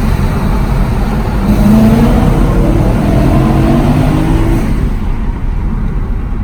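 Car engine accelerating, its pitch rising over a few seconds, loud throughout.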